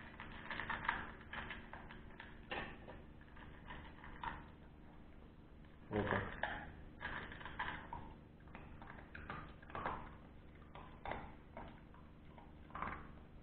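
Russo-European Laika puppy eating dry kibble from a stainless steel bowl: irregular crunching and clicking, with one louder knock about six seconds in.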